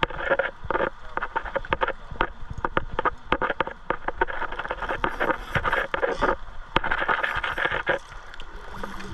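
Footsteps wading through shallow river water over gravel: repeated splashing with stones clicking and knocking underfoot.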